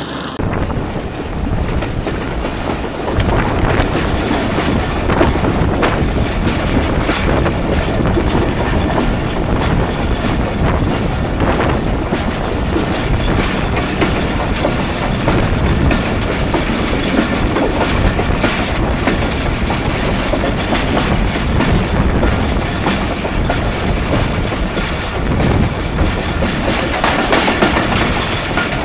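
Railway coach wheels running fast on the rails, heard up close at the bogie: a steady, dense rumble and rattle with repeated clacks as the wheels pass over rail joints.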